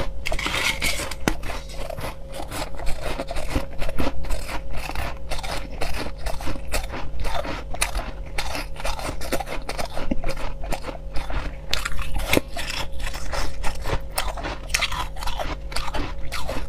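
Crushed ice being bitten and chewed close to the microphone: a dense, continuous run of crisp crunches and cracks. A faint steady hum sits underneath.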